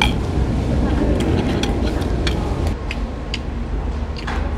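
Steady low background rumble with a few light clicks and clinks of chopsticks against dishes as a meal is eaten.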